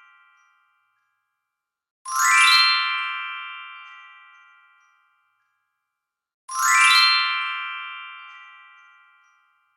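Glistening sparkle sound effect, played twice about four and a half seconds apart: each time a quick upward run of bright bell-like chimes that then rings out and slowly fades. The fading tail of the previous sparkle dies away near the start.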